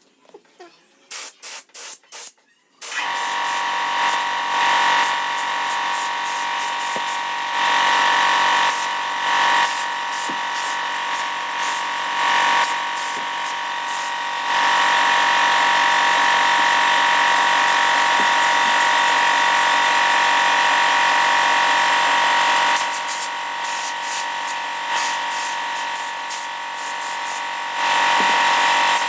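Handheld electric power tool motor run in several short bursts, then running steadily with a high whine, louder in spells.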